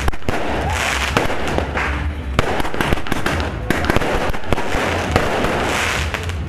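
Aerial fireworks going off in quick succession: a rapid, irregular string of sharp bangs and pops, with hissing between them.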